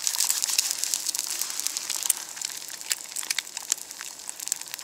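An egg frying in oil in a cast-iron skillet, sizzling steadily with many small pops and spits.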